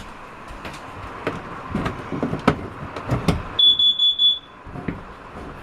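Carbon monoxide alarm in a travel trailer sounding one high, steady beep of just under a second near the end. It was set off while the propane water heater ran with the trailer shut tight, and the owner is unsure whether the alarm is faulty or the CO is real. Before the beep comes a run of sharp clicks and knocks.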